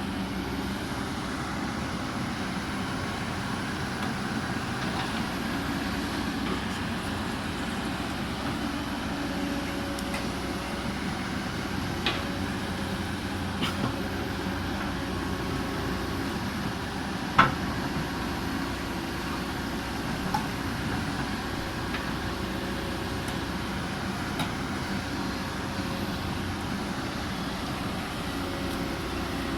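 Excavator diesel engine running steadily, with a few short sharp knocks, the loudest a little past halfway.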